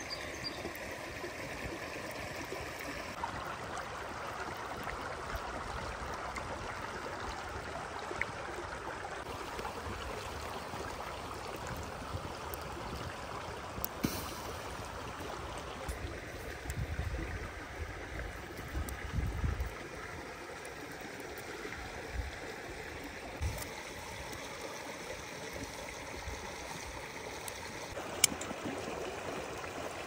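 A stream of water flowing steadily, with a few sharp clicks or knocks, the loudest near the end, and brief low rumbles about halfway through.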